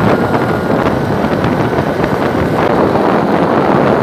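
Steady wind buffeting the microphone of a camera carried on a moving motorbike, with the rush of the ride and road underneath.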